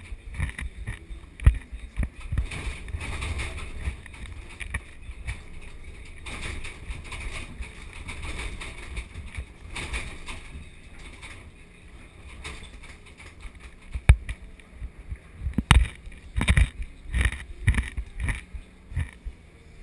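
Komatsu PC2000 hydraulic excavator digging blasted rock, heard from inside its cab: the diesel engine and hydraulics run as a steady low rumble. Over it come repeated sharp knocks and clatter of rock against the bucket, thickest in the last few seconds as the bucket fills and lifts.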